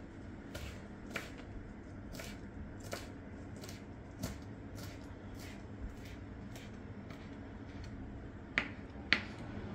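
Fresh coriander leaves being cut finely, a short sharp cutting click about twice a second, with two louder cuts near the end.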